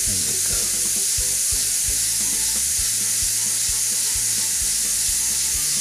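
Model twin-cylinder oscillating-valve steam engine running slowly on compressed air: a steady hiss of escaping air with a light, regular knocking, about four knocks a second.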